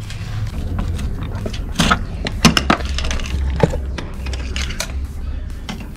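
Scattered sharp metallic clicks and clinks of hand tools being handled, such as sockets in a tool tray, over a steady low rumble.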